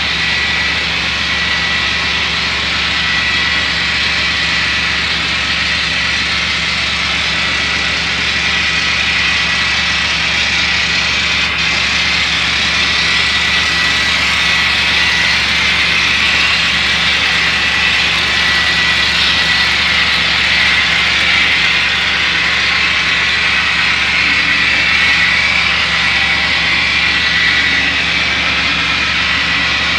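Engine sounds from the on-board sound decoders of N scale model locomotives: a steady engine rumble with a steady high whine over it. A model diesel runs past about halfway through, and the sound swells slightly while it passes.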